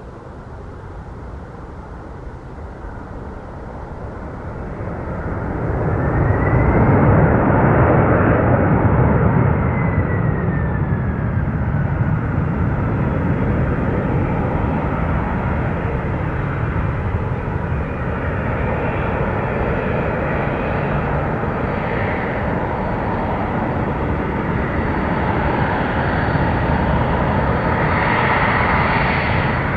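Jet airliner engines growing louder as the aircraft approaches, passing with a whine that rises and then falls in pitch. Steady jet noise continues after it passes and swells again near the end.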